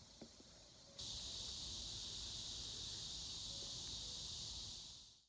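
Steady shrill chorus of insects such as crickets or katydids, an even high hiss that steps louder about a second in and then fades out at the end.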